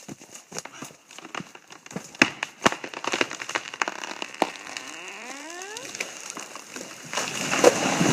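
A felled tree giving way: wood fibres crack and snap repeatedly, a creak rises in pitch about five seconds in, and the trunk and branches begin to crash down near the end, the loudest sound of all.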